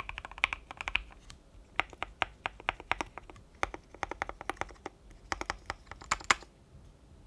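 Keychron Q3 mechanical keyboard, modded with tape, switch pads and polyfill, with lubed and filmed Banana Split linear switches and MT3 keycaps, being typed on in quick runs of keystrokes. One louder clack comes a little after six seconds, then the typing stops for the last second.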